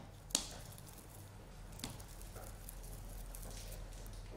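Faint handling sounds of fingers pressing an almond onto a soft, sticky ball of almond dough on parchment paper, with one light click about a third of a second in and a smaller tick near two seconds.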